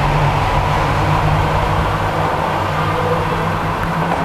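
Subway station escalator running: a steady low mechanical hum and drone while it is ridden down to the platform.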